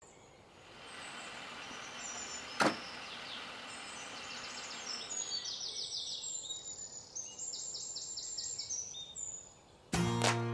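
Outdoor ambience with small birds chirping in quick repeated trills over a steady hiss, and a single sharp snap about two and a half seconds in. Guitar music starts near the end.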